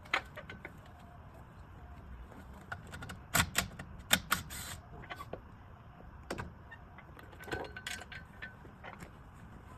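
Metal clinks and knocks of tools and parts being handled, scattered through, with a few sharp louder clanks about three and a half and four seconds in.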